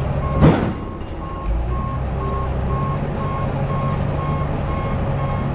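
Crawler dozer's diesel engine running steadily while a backup alarm beeps at an even pace, roughly two beeps a second. One brief, loud burst of noise comes about half a second in.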